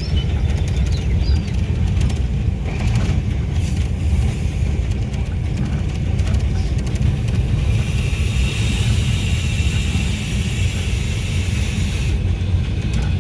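GE U18C diesel-electric locomotive running under load, heard as a steady low rumble inside the cab. A higher hiss joins for a few seconds past the middle.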